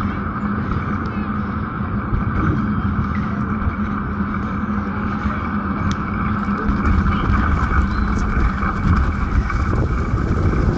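Steady rumble and hiss of a bicycle ride on a bumpy dirt road: tyre noise and wind on the microphone, with a few light clicks and rattles in the second half.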